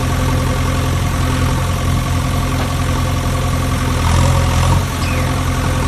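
An engine idling steadily, with a low, even hum that swells slightly about four seconds in.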